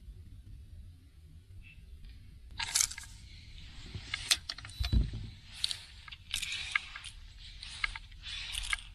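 Close handling noise of fishing gear and clothing: irregular scraping, rustling and rattling that starts about two and a half seconds in, with a dull thump around five seconds. Before that, a low rumble of wind on the water.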